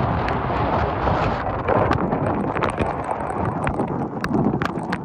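Wind buffeting the microphone over a dense, steady rushing noise, with many scattered sharp ticks throughout.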